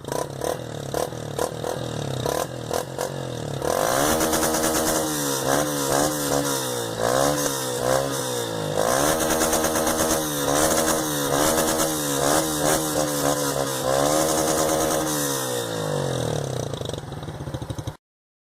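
Yamaha Fazer 150's single-cylinder engine through a mini pipe exhaust, running unevenly at first, then revved in a long run of quick rises and falls before dropping back to a ragged idle. It crackles and pops from the exhaust, and the sound cuts off suddenly just before the end.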